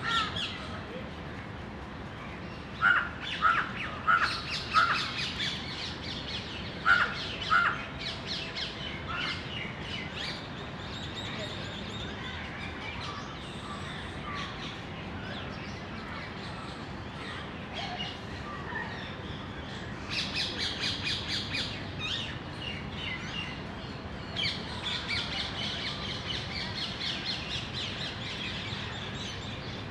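House crows cawing: about six short, loud caws in the first eight seconds, with smaller birds twittering behind, busiest in the second half.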